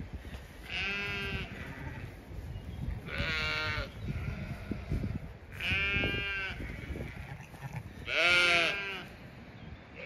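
Zwartbles sheep bleating four times, a few seconds apart, with the last call the loudest. Wind rumbles on the microphone underneath.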